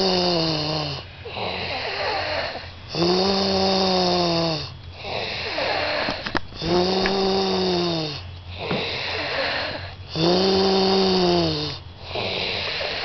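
Someone snoring in a steady cycle, about one snore every three and a half seconds. Each snore is a droning, pitched tone that bends up and then sags, with a rough breathy sound between snores.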